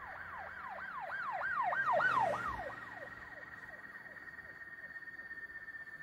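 Gull calling: a fast series of notes, each rising then falling in pitch, about three a second, swelling to loudest about two seconds in and fading out by three seconds in. A thin steady whine runs underneath, sliding slowly lower.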